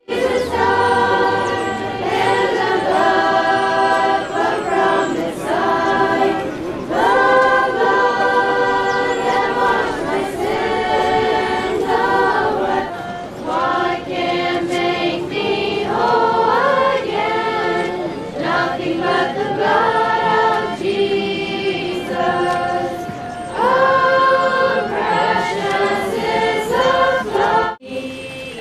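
A group of Amish singers singing together unaccompanied, in long held phrases with short breaks between them.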